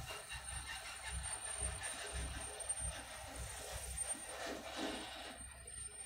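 Road traffic heard from inside a vehicle: a low, uneven engine rumble from vehicles idling and creeping at a junction, with a nearby vehicle passing close about four to five seconds in. A thin steady high whine runs underneath.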